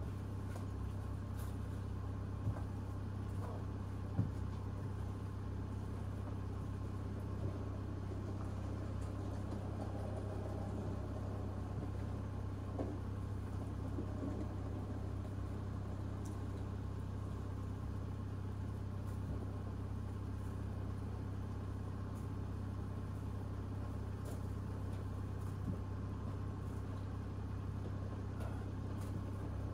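A Jaguar's engine idling steadily, an even low hum that never changes, with a few soft knocks in the first few seconds.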